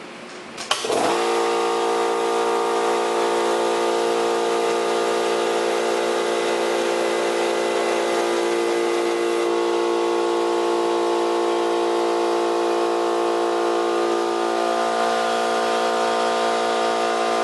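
Central Pneumatic 8-gallon, 2 HP oil-lubricated electric air compressor starting for the first time after assembly. It kicks on with a click about a second in, runs at a steady pitch, and stops near the end.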